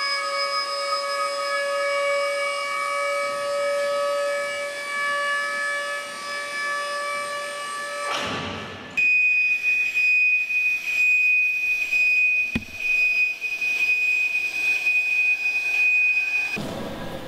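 Sustained steady tones, several pitches sounding together, that give way at about eight seconds to a single high steady tone pulsing in loudness, which stops shortly before the end; one short knock partway through.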